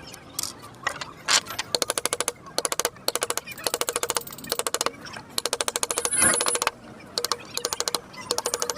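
Rapid tapping of a carving tool on wood, about fifteen to twenty taps a second, in short runs of about half a second with brief pauses between them.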